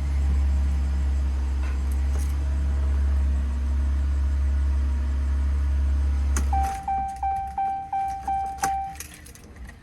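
2019 Ram pickup's engine idling with a steady low rumble, then shut off about two-thirds of the way in. Right after, the truck's warning chime sounds seven times in quick succession, about three a second, among a few clicks.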